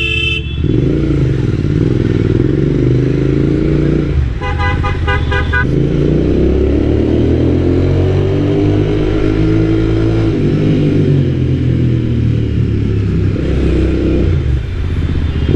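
Royal Enfield Interceptor 650's parallel-twin engine running and revving up and easing off while riding, heard through a helmet lavalier mic. A vehicle horn sounds in a string of short beeps about four seconds in.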